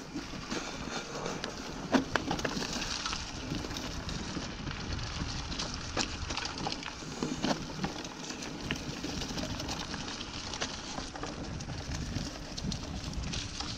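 Mountain bike rolling down a dirt forest trail, its tyres crunching and crackling over dry fallen leaves, with frequent small clicks and knocks from bumps and one sharper knock about two seconds in.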